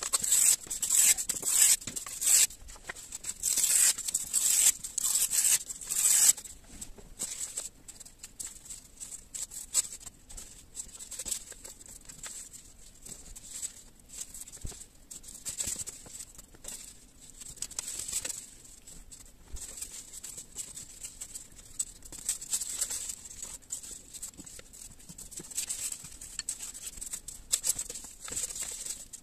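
Coloured paper being torn by hand into strips: a run of loud rips over the first six seconds or so, then softer rustling and sliding of paper strips as they are woven.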